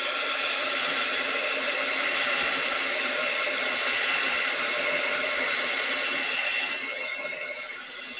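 Handheld craft heat gun blowing steadily, a fan rush with a faint steady whine, drying wet paint on paper. It grows quieter near the end.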